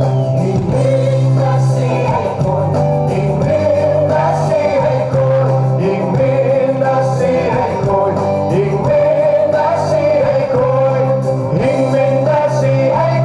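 A group of men and women singing a song together into microphones, amplified through a PA over steady instrumental backing.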